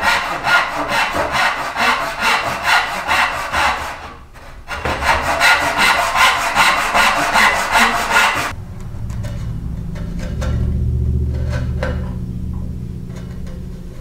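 Handsaw cutting across a walnut rail in quick, even back-and-forth strokes, pausing briefly about four seconds in and stopping a little after eight seconds. After that, a low steady hum with a few light clicks.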